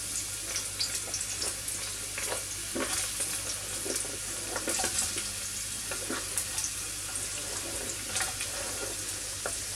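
Chopped onion sizzling in hot vegetable oil in a frying pan, a steady hiss broken by frequent small crackles and pops, just after going into the pan.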